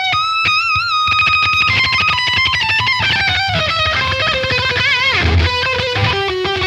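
Heavily saturated electric guitar lead solo through the Mars Plexi #1 amp simulator at full gain. Long notes are held with vibrato, then a run steps down in pitch, over a backing mix with drums.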